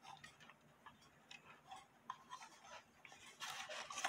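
Handling noise from a wooden cuckoo clock case: faint, irregular small clicks and rubbing as it is held and fingered, then a louder rustling scrape about three and a half seconds in as the case is turned round.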